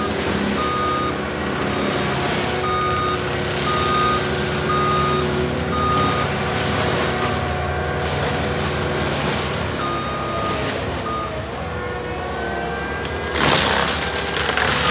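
Compact track loader's diesel engine running steadily, its reversing alarm beeping about twice a second for the first five seconds and again briefly around ten seconds in. Near the end a sudden loud rush of noise as brush is pushed over.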